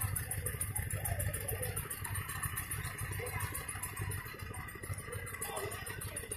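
A small engine running steadily with a low, slightly pulsing rumble, under faint background voices.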